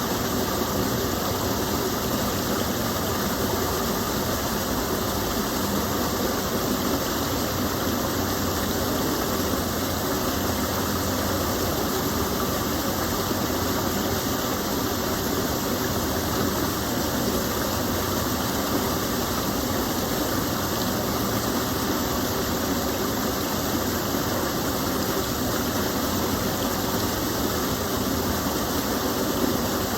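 Gentle stream of water pouring and flowing steadily, a constant even rush with no breaks.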